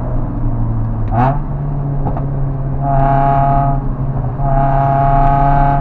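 Car engine running hard, heard from inside the cabin, its note stepping up about a second in. Tyres squeal twice under cornering load, first about three seconds in and again from about four and a half seconds to the end.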